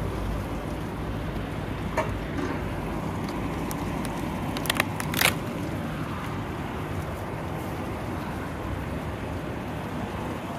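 Steady low outdoor background noise, with a faint click about two seconds in and a few sharp clicks followed by a brief rustle around five seconds in.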